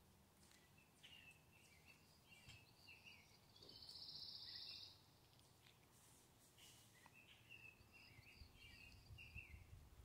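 Faint songbirds chirping in the background, with a short buzzy trill about four seconds in, the loudest sound. Faint ticks and a low rumble underneath.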